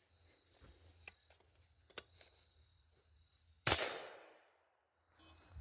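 A single rifle shot about three and a half seconds in, sharp and loud, its echo dying away over about a second.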